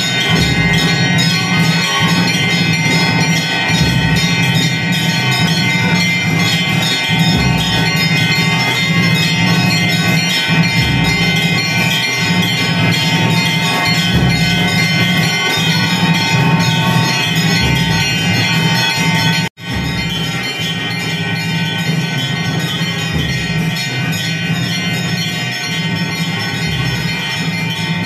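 Hindu temple bells ringing continuously during the midday maha puja, the ringing that accompanies the lamp offering. There is a sudden momentary break about two-thirds of the way through, after which the ringing carries on.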